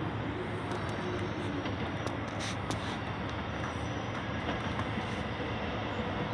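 Alstom X'Trapolis electric train approaching along the rails: steady running noise of wheels on track, with a few sharp clicks two to three seconds in.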